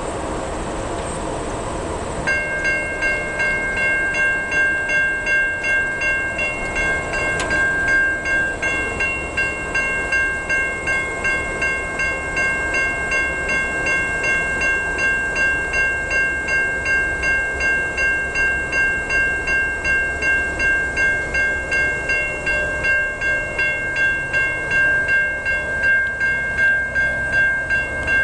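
Railroad crossing warning bell starting up about two seconds in, then ringing steadily at roughly two strikes a second as the crossing signals activate for an approaching train.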